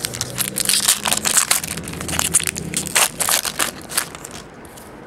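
Crinkly foil wrapper of a trading-card pack being ripped open and crumpled by hand: a dense crackling that lasts about four seconds and then dies away.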